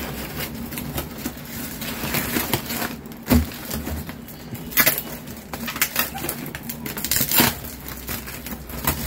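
Delivery packaging being pulled and torn open by hand: irregular crinkling and crackling of wrapping, with a few sharper cracks and a dull thump about three seconds in.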